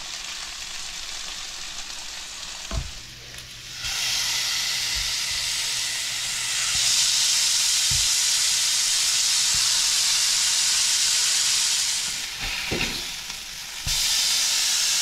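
Seasoned redfish fillets frying in hot oil in a cast iron skillet. The sizzle is moderate at first and turns loud from about four seconds in as the fillets go into the pan, with a few light knocks of pan or utensil. It dips briefly near the end and comes back loud.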